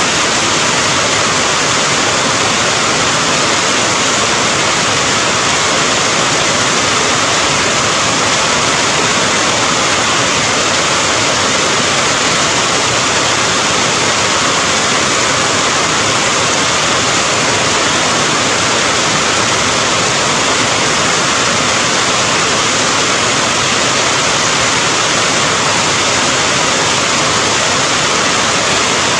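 Steady heavy rain: an even, unbroken hiss with no single drops or other events standing out.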